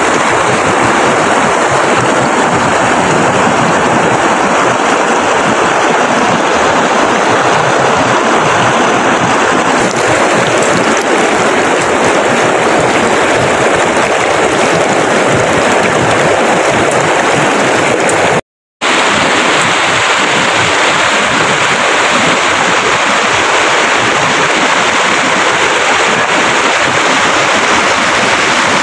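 Steady, loud rushing of water, like a fast mountain stream, with a split-second break about two thirds of the way through.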